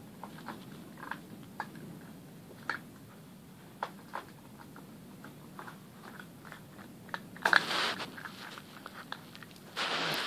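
Puppy crunching and chewing food from a metal bowl: short, irregular crunches and clicks. Louder rustling comes about seven and a half seconds in and again near the end.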